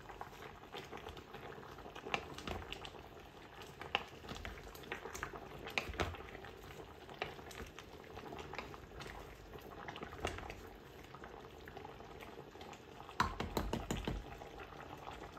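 Beef stew simmering quietly in an enamelled pot while a wooden spoon stirs the meat and vegetables, with scattered knocks of the spoon against the pot that come thicker near the end.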